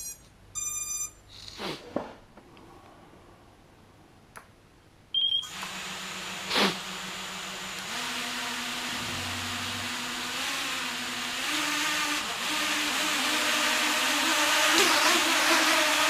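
Small home-built quadcopter: a few electronic beeps as its battery is plugged in, then about five seconds in the brushless motors and propellers start up with a sudden whir. They keep running, stepping up in pitch and getting louder as the throttle is raised for a first hover.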